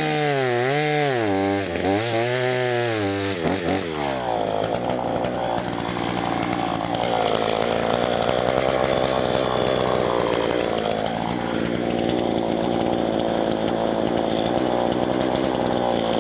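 Two-stroke chainsaw at high revs, the pitch rising and falling about once a second. After about four seconds it drops to a steady idle.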